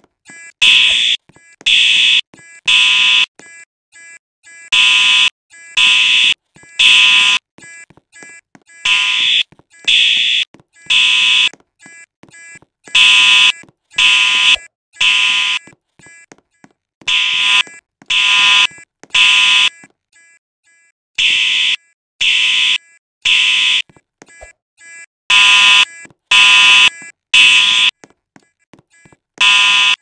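Fire alarm sounding the temporal-three pattern: three loud, high-pitched beeps about a second apart, then a pause, repeating about every four seconds. This is the standard evacuation signal.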